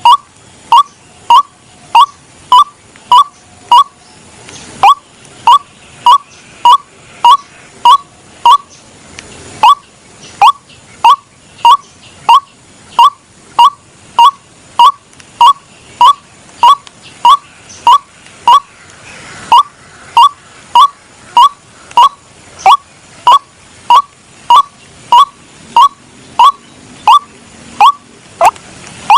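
White-breasted waterhen (ruak-ruak) calls played as a trapping lure: a short sharp call repeated rapidly and evenly, nearly two a second, with a few brief pauses. The lure imitates the bird's mating call.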